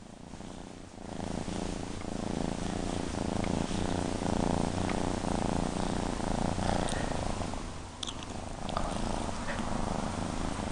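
A kitten purring close to the microphone while being scratched on the head. The purr starts about a second in and swells and eases in long waves.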